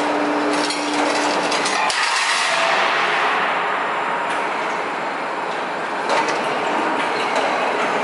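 Hydraulic guillotine shear cutting long steel plate: a steady hum stops with a sharp clank about two seconds in. A loud, even metallic rush follows, with scattered knocks and clanks.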